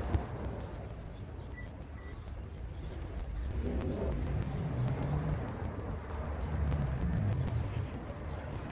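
City street traffic: a steady low rumble of passing cars, swelling somewhat louder for a few seconds in the middle.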